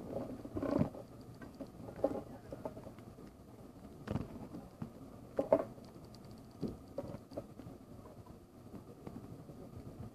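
Paper-wrapped packs of Wrigley's Spearmint chewing gum being handled by hand and set down, making scattered light taps and rustles; the sharpest tap comes about four seconds in.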